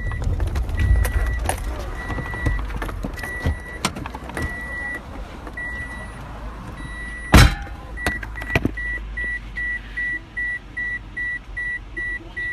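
A car's warning chime beeping on one high pitch, settling into a quick, even run of about three beeps a second in the second half, over rustling and small knocks. A single loud thump, the loudest sound, comes about seven seconds in.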